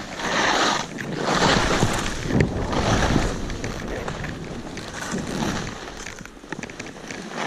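Skis scraping and hissing across snow through a run of quick turns, about one swell a second, easing off near the end.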